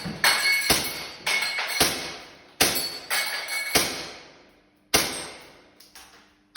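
Airsoft Glock 18c pistol shots with BBs striking the steel plates of a Texas star target: about ten sharp cracks at an uneven pace, each followed by a metallic ring that fades.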